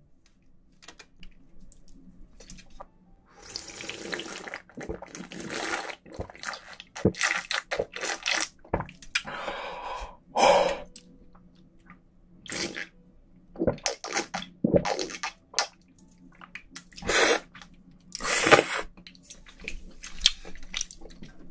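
Cold naengmyeon broth being slurped and gulped straight from a stainless steel bowl: a run of separate sips and swallows, some of them loud, after a quiet first few seconds.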